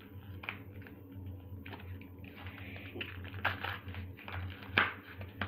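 Foil Pokémon booster pack wrapper being handled and torn open: irregular crinkling and rustling, with a few sharp crackles.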